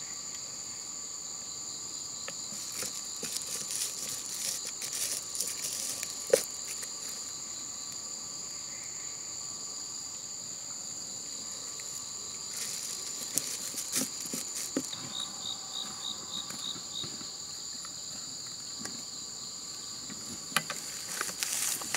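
Steady insect chorus, droning at several high pitches together. Over it come scattered soft clicks and knocks from handling a chainsaw's filler cap and a plastic fuel can, and a brief run of quick high chirps about two-thirds through.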